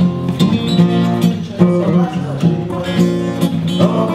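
Acoustic guitar strumming chords at a steady rhythm.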